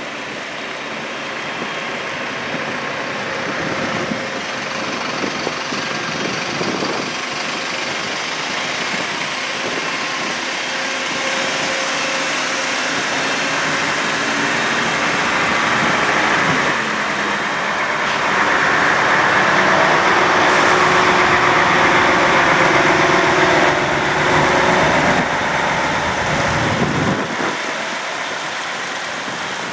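Heavy vehicles in a slow convoy driving past, engines running steadily. The sound grows louder in the second half as a large mobile crane truck passes close.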